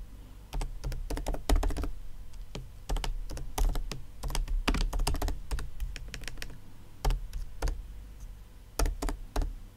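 Typing on a computer keyboard: irregular runs of key clicks with brief pauses between them.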